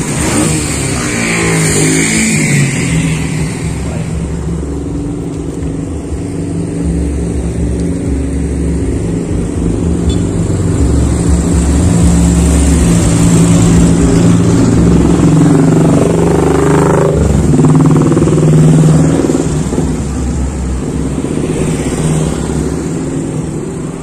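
Street traffic: motorcycle and car engines running steadily, with vehicles passing and one revving up about two-thirds of the way through, where it is loudest.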